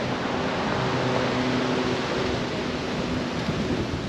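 Steady outdoor city background noise: an even hiss with a faint low hum running under it.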